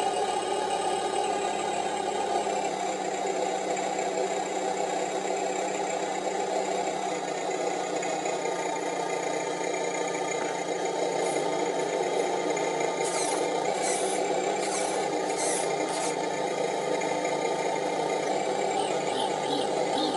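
Turbodiesel engine sound from an RC car's electronic sound module, playing a steady diesel idle through the car's small speaker. About two-thirds of the way through, five short high hissing bursts come in quick succession.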